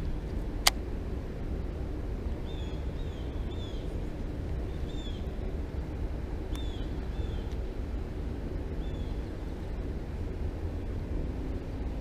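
Outdoor ambience: a steady low rumble, with a bird giving short, downward-slurred calls in twos and threes. One sharp click about a second in.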